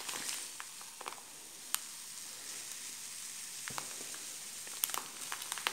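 Fine bulgur pouring from a packet into a drinking glass: a soft, steady hiss of dry grains, with a few light ticks.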